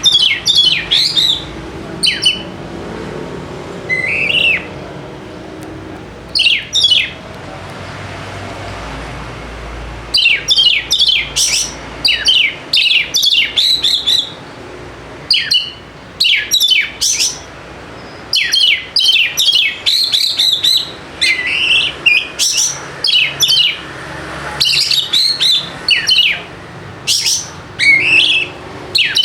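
Oriental magpie-robin (kacer) singing: quick phrases of sharp, downward-sweeping whistled notes. The phrases are sparse at first and come almost without pause from about a third of the way in.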